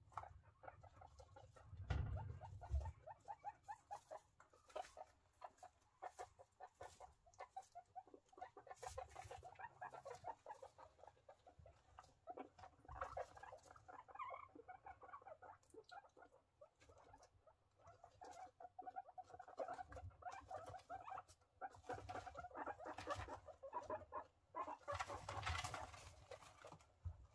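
Guinea pigs moving and nosing about in wood-shaving and hay bedding: faint rustling made of many quick soft ticks, with a low bump about two seconds in.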